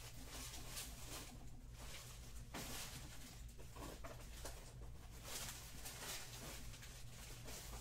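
Faint rustling and light handling noises of cardboard trading-card hobby boxes being picked up, opened and set down, over a low steady hum.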